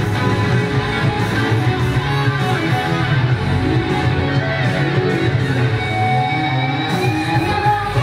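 Live performance of an upbeat pop-rock song: electric guitar over a steady drum and bass beat, with some singing.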